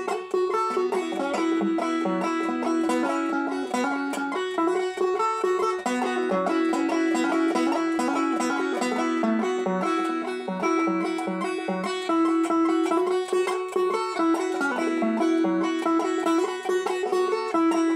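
Resonator banjo picked in a fast, even stream of bright notes, a bluegrass-style roll.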